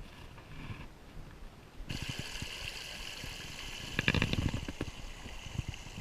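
Water splashing and trickling, starting suddenly about two seconds in, with a louder burst of splashing about four seconds in.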